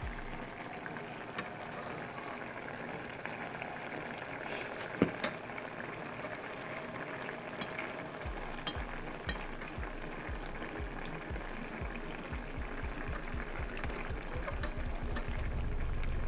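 Octopus and shrimp in sauce sizzling and simmering in a stainless steel pan, stirred with a silicone spatula that scrapes and clicks against the pan. One sharp knock about five seconds in, and the sound grows a little louder near the end.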